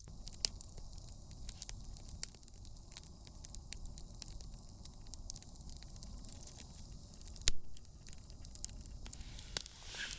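Campfire crackling, with many small sharp pops and one louder snap about seven and a half seconds in, over a steady low rush.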